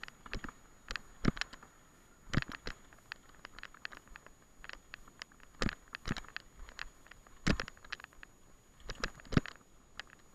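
Mountain bike rattling over a rough grassy track: irregular sharp clacks and knocks as it hits bumps, some in quick clusters, over a faint steady high whine.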